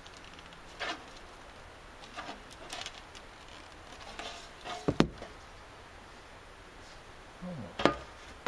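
Sheet metal being worked by hand into a curve around a spray can, with scattered light rattles and flexing. A sharp knock comes about five seconds in and another near the end.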